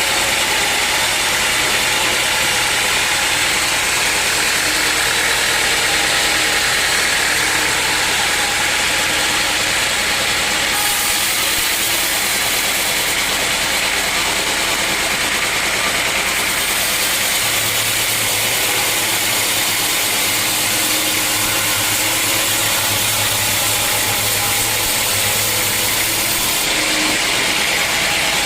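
Sawmill machinery running steadily: a motor hum under a loud, continuous hiss of the saw, the high hiss changing a few times.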